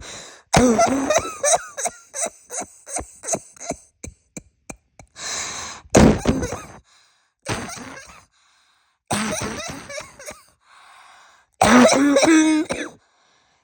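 A woman with a bad cold coughing close to the microphone in several fits: a quick run of short coughs in the first few seconds, then single harsh coughs, and a longer voiced coughing fit near the end.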